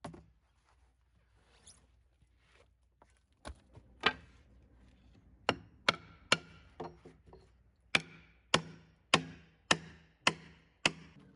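A hand tool striking the Douglas fir log again and again: about a dozen sharp blows, a few at first and then about one every half second, each with a short ring.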